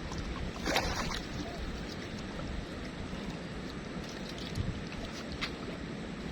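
Steady low rumble of wind buffeting the microphone, with a short sharp noise about a second in and a few faint clicks.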